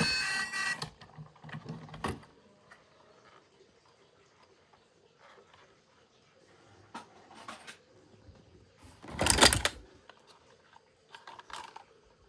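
Plastic toy vehicles being handled: scattered small clicks, knocks and rattles, with one louder scraping rustle lasting about a second, about nine seconds in.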